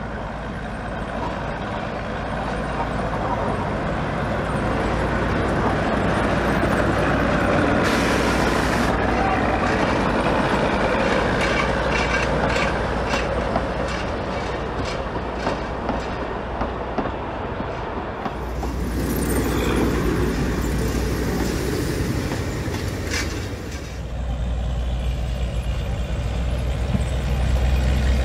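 Narrow-gauge Baguley diesel locomotives hauling a passenger train, engines running and wheels clicking over the rail joints. Near the end a diesel engine rumbles low and close.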